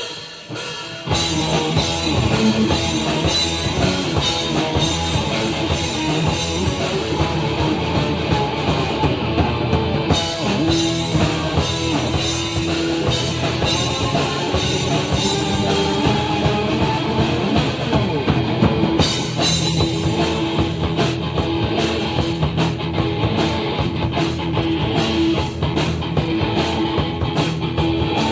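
Live rock band playing an instrumental blues-rock passage on drum kit and guitars. After a few scattered hits, the full band comes in about a second in and keeps a steady beat.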